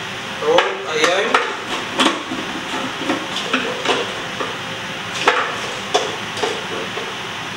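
Kitchen utensils and containers knocking and clinking, eight or so sharp knocks at irregular intervals over a steady background hiss.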